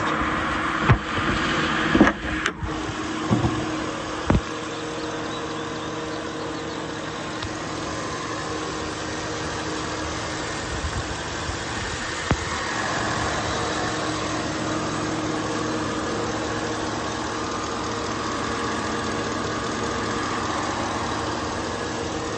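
2008 Chevrolet Avalanche's 5.3-litre V8 idling steadily, with a few sharp clunks in the first four seconds as the hood is raised.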